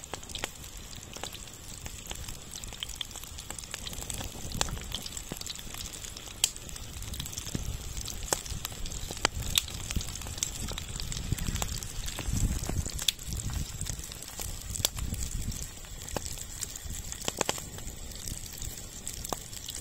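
Breaded trout frying in hot oil in a pan over a fire: a steady sizzle with frequent sharp crackles and pops, and a low rumble that swells through the middle.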